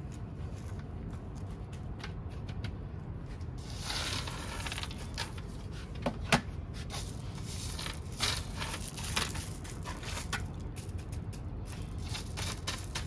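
Close-up handling noise: crackling and rustling with scattered small clicks, thicker from about four seconds in, and one sharper click about six seconds in, over a steady low hum.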